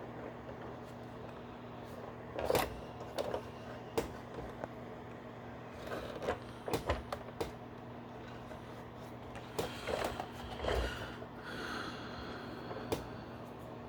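Hard plastic parts of a G.I. Joe BUGG toy vehicle being handled and pressed together, with irregular clicks, knocks and rustles as a seat-belt piece is worked into place. A steady low electrical hum runs underneath.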